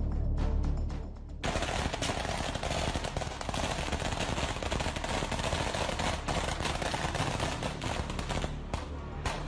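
Background music, then about a second and a half in, sustained rapid automatic gunfire starts abruptly, a dense rattle of shots that runs on with the music still underneath. It is live fire by security forces on protesters.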